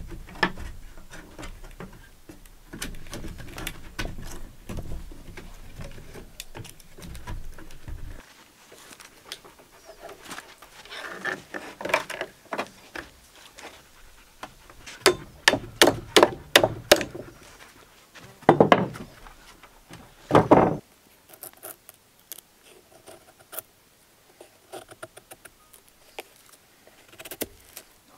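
Split wooden log sections knocked and shuffled into place against each other on wooden boards, then wire clinking and rattling as it is wrapped around the log and pulled tight, with two longer scrapes about two-thirds of the way in. Near the end there are only scattered small clicks.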